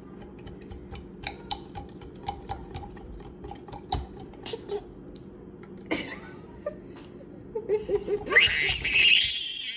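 Plastic straw stirring lemon water in a glass pitcher, clicking against the glass about three times a second. Then a toddler laughs, rising into a loud high-pitched squeal near the end.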